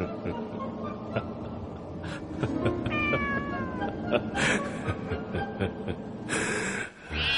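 A calico cat meows once, a falling call about three seconds in, over background music. A short burst of noise comes near the end.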